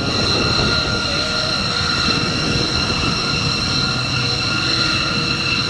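Northrop Grumman B-2 Spirit's turbofan jet engines running as the bomber taxis: a steady high whine, strongest in a piercing tone, over a continuous low rumble.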